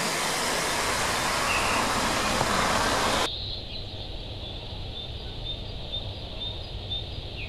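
Water pouring over a small weir, a steady rush that cuts off suddenly about three seconds in. After it, a quieter outdoor background with a run of short, high chirps.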